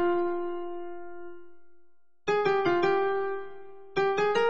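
Karaoke guide melody: the vocal line of an enka song played one note at a time on a single keyboard-like tone. A long held note fades away over about two seconds, a brief silence follows, then a new phrase of quick notes begins.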